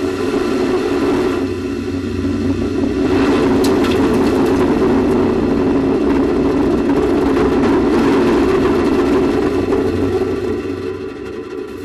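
Space shuttle launch: a steady, loud rumble from the ascending shuttle's rocket boosters, with hiss and scattered clicks thickening from about three seconds in.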